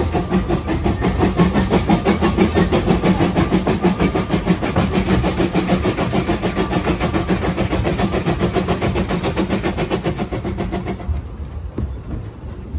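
Narrow-gauge steam locomotive running, heard from its footplate: a fast, even beat of exhaust and running gear over the rails. The beat falls away about eleven seconds in, leaving a quieter rumble as the engine coasts.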